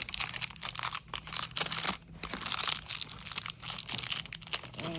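Crinkly packaging of a set of acrylic dresser knobs being handled and squeezed, a dense run of irregular crackles with brief lulls.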